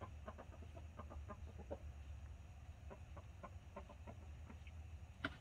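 Buff Orpington chickens clucking faintly: a string of short, quick clucks, several a second, with a louder cluck near the end.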